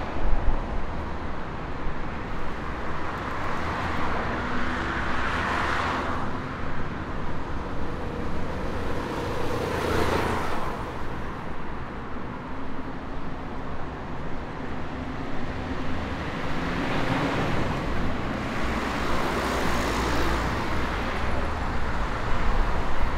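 City street traffic: a steady low rumble of engines and tyres, with vehicles passing close by three times, swelling about five, ten and nineteen seconds in.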